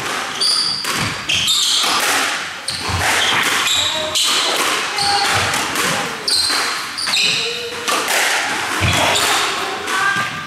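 Squash rally: the ball striking rackets and the walls again and again, with shoes squeaking on the wooden court floor between the hits.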